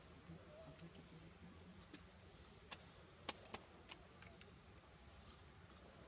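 Steady insect chorus, a high unbroken buzz in two pitches. A few sharp clicks are heard between about two and four seconds in, the loudest just after three seconds.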